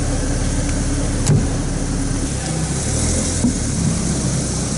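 Porsche 968's 3.0-litre four-cylinder engine idling steadily, with a single sharp click about a second in.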